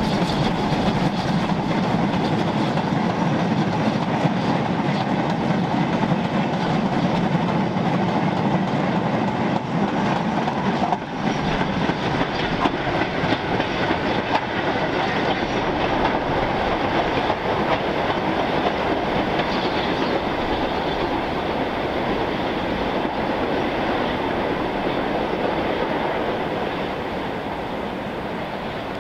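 A goods train of vans hauled by a BR Standard Class 4 2-6-4 tank steam locomotive going past, its wheels clattering over the rail joints. The sound eases a little near the end as the train moves away.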